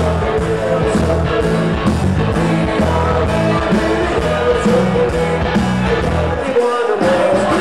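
Live band playing upbeat rock-and-roll party music with singing; the bass drops out for a moment near the end.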